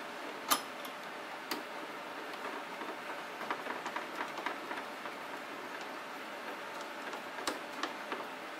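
Small clicks and ticks of hard plastic parts being handled: an RC truck's plastic body and a 3D-printed grill being fitted and its small bolts driven in by hand. A sharp click comes about half a second in and another a second later, a run of light ticks follows in the middle, and two more clicks come near the end.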